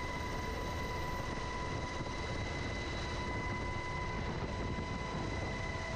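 UH-60 Black Hawk helicopter running steadily: a constant heavy drone with a steady high-pitched whine over it.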